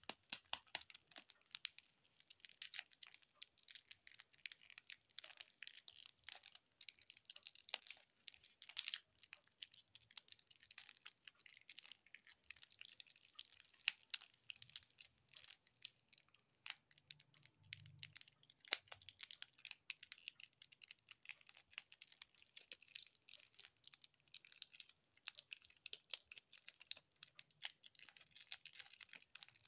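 Plastic lollipop wrappers crinkling and crackling as they are twisted and pulled off by hand: a quiet, dense run of quick crackles with the odd sharper snap.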